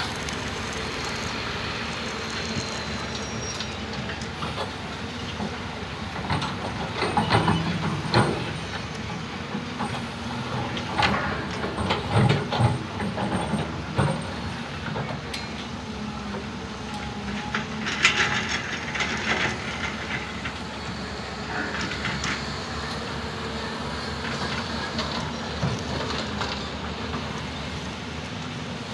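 Hyundai -9 series crawler excavator's diesel engine running steadily under hydraulic load while it digs a trench. Bursts of clanking and scraping as the bucket works the soil come about seven, twelve and eighteen seconds in.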